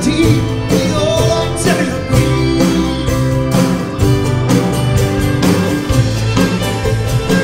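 Live band playing an instrumental break: strummed acoustic guitar and violin over a steady beat.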